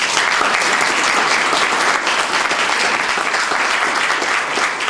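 Room full of seated people applauding: a dense, steady clatter of many hands clapping at once.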